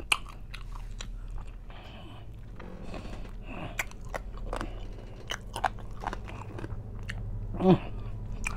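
A person chewing a mouthful of crunchy fried food, with scattered wet crunches and mouth clicks.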